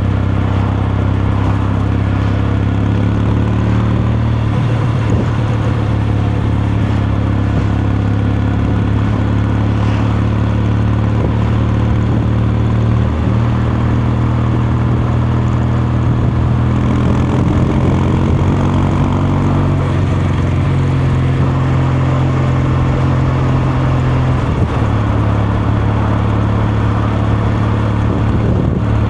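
Kawasaki Meguro K3's 773 cc air-cooled parallel-twin engine and exhaust running under way, a steady drone whose pitch makes a few small rises and drops.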